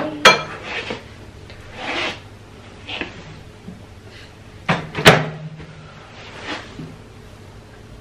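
Ceramic bowls clink and scrape as they are set on the tray of a combination microwave oven. About five seconds in comes a loud double clunk, the oven door being shut.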